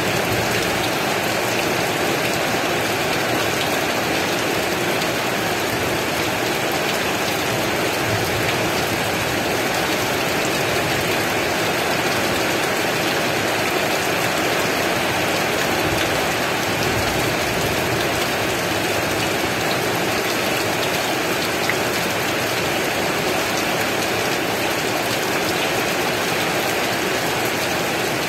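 Heavy rain falling steadily: a dense, even hiss of drops.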